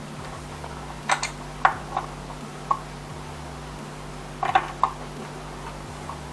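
Small screwdriver clicks and scrapes against a wall socket's terminal screw and metal mounting frame as the neutral wire is unscrewed: a few sharp clicks about a second in and another cluster a little after four seconds, over a faint steady hum.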